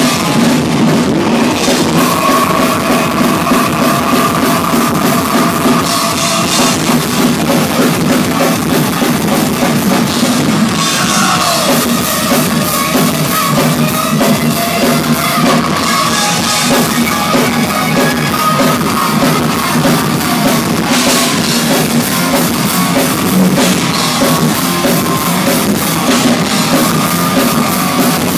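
Thrash metal band playing live and loud, recorded from within the crowd: distorted electric guitars over driving drums with kick drum.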